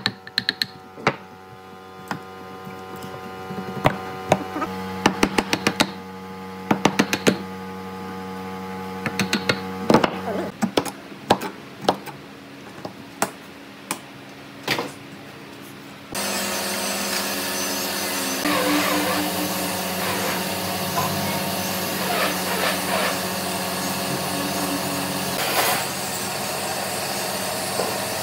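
Short groups of quick knocks and taps, then a power tool starts abruptly about sixteen seconds in and runs steadily.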